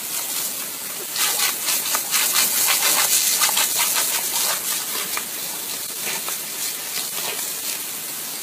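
A jet of water hissing and splattering, with repeated splashy spatters as a dog bites into the stream. The spatters come thickest about one to three seconds in.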